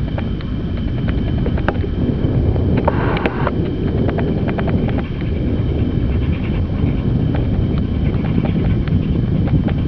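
LNER Peppercorn A1 class steam locomotive 60163 Tornado, a three-cylinder Pacific, working a passenger train past, under a dense low rumble of wind on the microphone with many light clicks. There is a brief higher rushing sound about three seconds in.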